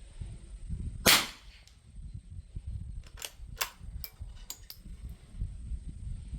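A single rifle shot from a Winchester Model 52 .22 rimfire target rifle, about a second in, with a short echo. About two seconds later come several sharp metallic clicks as the bolt is worked. Wind rumbles on the microphone underneath.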